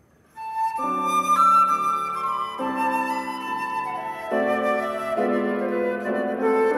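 Concert flute and grand piano starting a gently lilting classical piece: a flute note about half a second in, then piano chords join beneath the flute melody.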